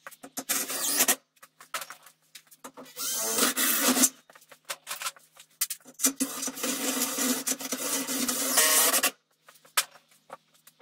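Cordless drill driving screws in three runs: a short one near the start, a second of about a second, and a longer one of about three seconds.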